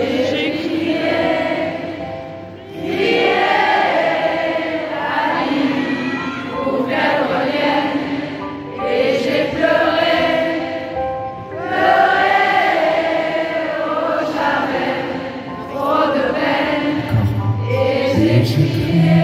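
A large crowd singing along in chorus over piano accompaniment, in phrases a few seconds apart, with deeper piano bass notes coming in near the end.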